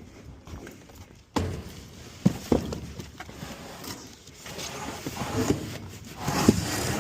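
Junk being handled and moved: a sudden start of scraping and rustling about a second in, two sharp knocks a moment later, and more shuffling and scraping that grows louder near the end.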